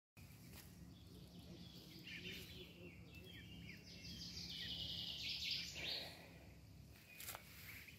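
Faint bird chirping: a run of short, high chirps and peeps from about two to six seconds in, over a steady low hum.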